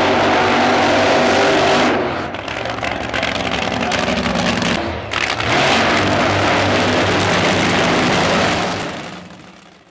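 Nitro Funny Cars' supercharged V8 engines at full throttle during burnouts, rear tyres spinning, very loud, with brief drops where one car's run cuts to the next, then fading out near the end.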